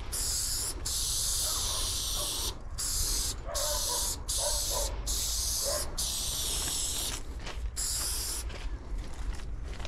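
Aerosol spray paint can spraying in about eight short hissing bursts with brief pauses between them, paint being laid on in quick passes.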